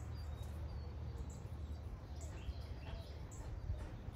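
Quiet outdoor background: a low steady rumble with a few faint, short bird chirps.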